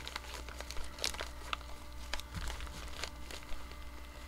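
Yellow padded paper mailer envelope being handled and worked open by hand: irregular crinkling and rustling of the paper with scattered sharp crackles.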